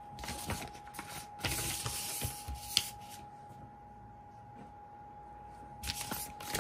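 Folded paper catalogue leaflet rustling and crinkling as it is handled and turned over. The rustling comes in bursts through the first three seconds, ending with a sharp crackle, then comes again near the end.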